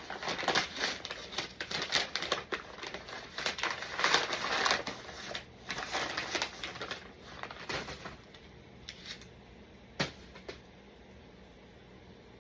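Packaging being handled: a rapid run of rustling and clicking for about eight seconds, then quiet apart from one sharp click about ten seconds in.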